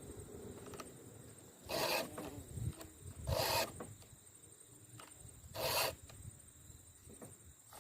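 Chainsaw file rasping across the cutter teeth of a full 3/8" chainsaw chain during sharpening: three separate strokes, roughly two seconds apart.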